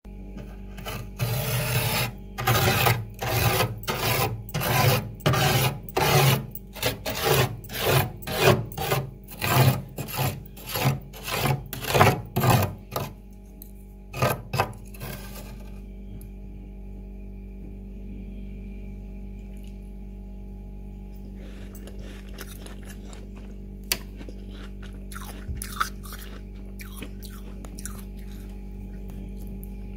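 Metal spoon scraping frost in a freezer, in quick strokes about two a second for the first dozen seconds. A couple more strokes follow, then a quieter stretch with a steady low hum and a few faint scratches.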